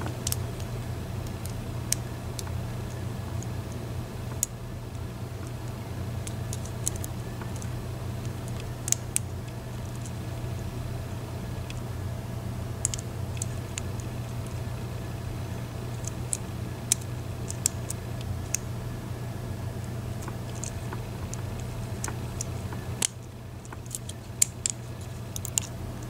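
Faint, scattered metallic clicks and scrapes of a lock pick working the pins inside an Eaton Yale & Towne pin-tumbler padlock, over a steady low hum.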